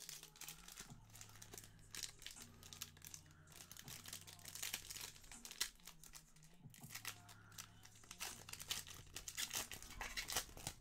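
Foil wrappers of Panini Select basketball card packs crinkling and tearing as they are pulled open by hand, in dense irregular crackles that come in bunches, busiest in the middle and near the end.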